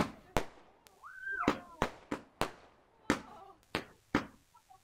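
Afterglow firework cake (a consumer barrage) firing: about ten sharp shots in an uneven rhythm, each trailing off briefly.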